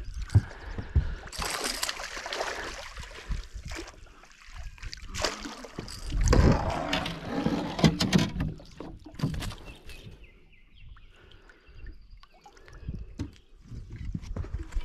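A hooked smallmouth bass splashing at the surface and a landing net scooped through the water beside the boat, with sharp knocks against the hull. There are two loud spells of splashing, and softer dripping and handling sounds after the net comes up, about two-thirds of the way in.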